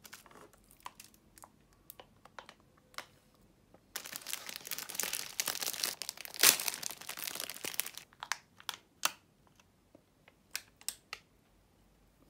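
Thin plastic food packaging crinkling as it is handled, with a dense stretch of crinkling and tearing in the middle as a crepe's plastic wrapper is opened. Light taps and rustles come before and after it.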